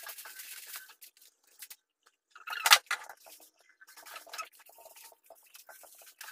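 Irregular crinkling and rustling of plastic packaging as items are handled, with one louder sharp noise a little under three seconds in.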